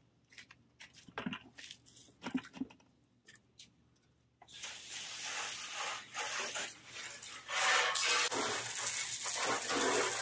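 Garden hose with a spray nozzle blasting water onto a jon boat's side: a dense hiss that starts abruptly about four seconds in and grows louder a few seconds later. Before it, a few scattered knocks and clatters.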